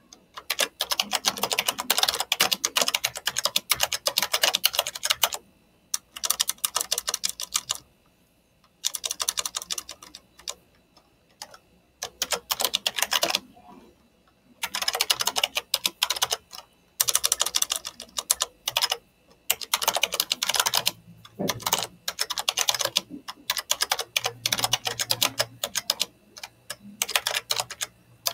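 Typing on a computer keyboard: fast runs of keystrokes in bursts of a few seconds, with pauses of about a second between them, as a search phrase is typed in.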